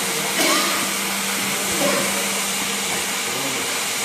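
COMAC Innova85B ride-on floor scrubber running, with the steady rush of its vacuum suction motor and a constant hum. Two short louder sounds come through about half a second and about two seconds in.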